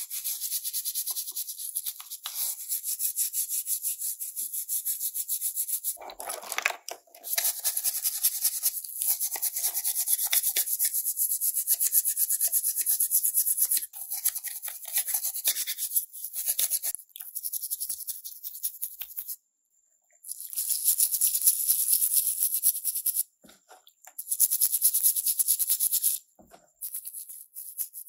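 Stiff-bristled hand brush scrubbing the rusty metal parts of a die-cast model car in soapy water: rapid back-and-forth strokes in long spells, stopping briefly a few times.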